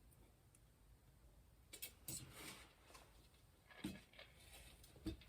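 Near silence with a few faint clicks and taps of small parts being handled during a bicycle hub rebuild. The taps come in a short cluster about two seconds in, then singly near four and five seconds.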